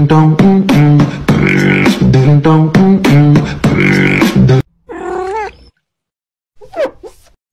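A beatbox-style vocal music track with a fast, clicking beat that cuts off suddenly about four and a half seconds in. A few short, high, sliding vocal calls follow.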